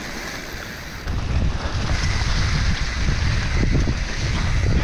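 Wind rushing over the microphone of a mountain bike descending fast on a dirt trail, with a heavy rumble of tyres and bike over the ground that comes in about a second in and stays steady.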